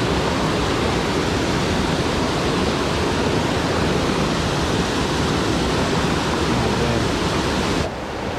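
Waterfall's rushing water: a loud, steady wash of noise, which drops off abruptly near the end.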